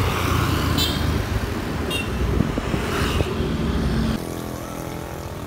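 Motorcycle engine running with wind and road noise as the bike rides along and slows to a stop, settling to a quieter steady idle about four seconds in. Three short high chirps sound over it.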